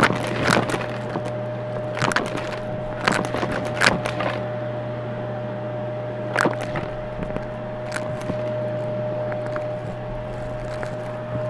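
Vacuum cleaner running steadily with a constant whine while crunchy debris crackles and clicks as it is sucked up the nozzle. The crackles are thickest in the first four seconds and come again about six and a half seconds in.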